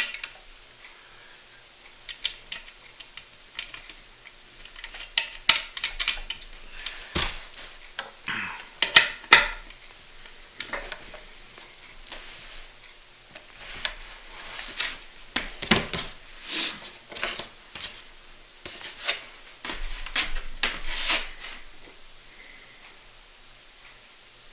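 Hardware being worked by hand into a wooden rodel's frame: scattered light metal clicks, clinks and short scrapes as a bolt is fed through the lined-up holes and parts are handled. The sounds come in irregular clusters, busiest in the middle and again later on.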